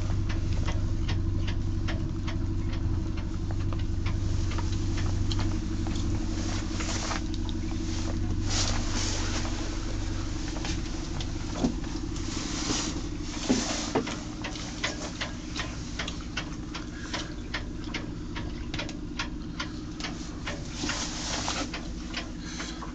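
A steady low machine hum with frequent small clicks and a couple of sharper knocks about halfway through.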